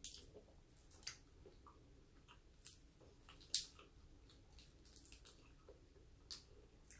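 Faint, scattered clicks and crackles of a cooked shrimp's shell being peeled apart by hand, with two sharper snaps about two and a half and three and a half seconds in.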